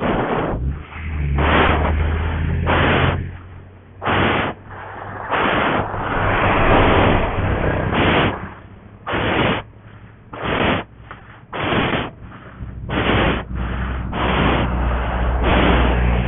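Motorcycle engine running at low revs on a steep climb, under loud rushing bursts of noise on the microphone about once a second.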